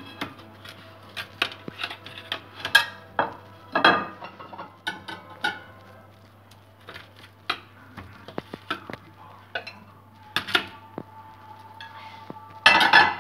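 Metal serving spoon scraping and clinking against a metal baking tray and a china plate while roast baby potatoes are scooped out. The clicks and scrapes come irregularly, with the loudest cluster near the end, over a low steady hum.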